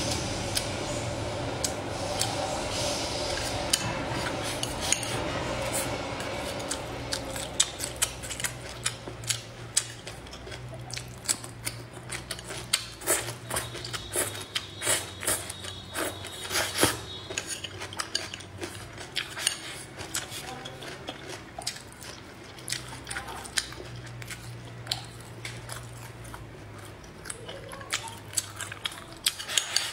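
Utensils clicking and scraping against bowls and plates while eating: many small, quick clicks, busiest around the middle.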